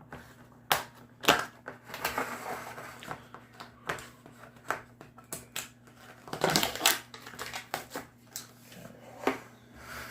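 A cardboard Pringles can being handled and opened, with sharp plastic clicks from the lid and crinkling and tearing of the seal. The loudest burst of crinkling comes past the middle.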